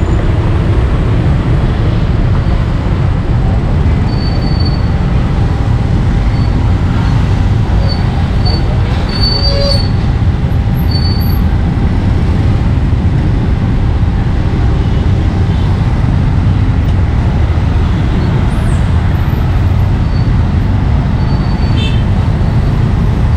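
Steady low rumble of street noise, like passing traffic, without a break. A few faint, brief high chirps come through between about four and eleven seconds in.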